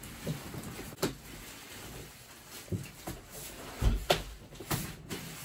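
Scattered knocks and clunks of flat-pack furniture parts being handled, about half a dozen, the loudest a dull thump about four seconds in.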